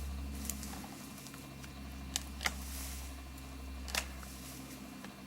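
Branches being cut while pruning a tree: a few short, sharp snaps and clicks spread over several seconds, over a steady low hum.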